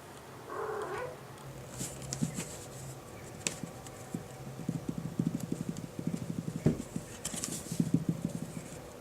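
Pet cat sounds close to the microphone: a short call about half a second in, then a run of quick, soft pulses through the second half.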